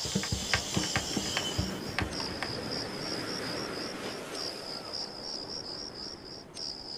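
Crickets chirping in a steady run of short, rapid pulses. A few soft taps fade out in the first two seconds.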